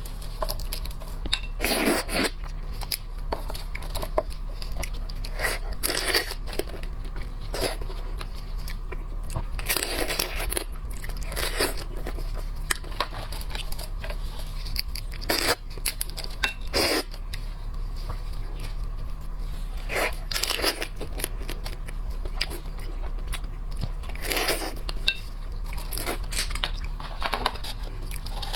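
Close-miked eating of shellfish: shells cracking and being torn apart, with crunchy chewing in irregular bursts, over a steady low hum.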